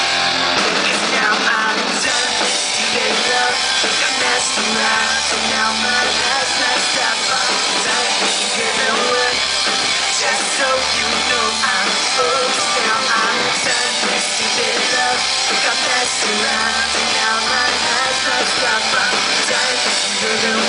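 Rock band playing live at full volume: electric guitars, bass and drum kit driving through an instrumental stretch of the song with no lead vocal.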